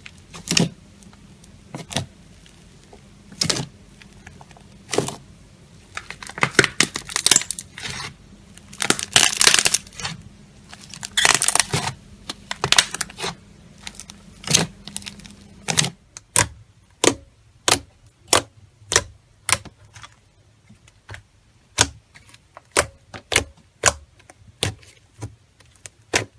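Slime being squeezed and pressed by hand, making sharp clicking pops: single pops about every second and a half at first, then dense crackly runs, then a steady string of about two pops a second.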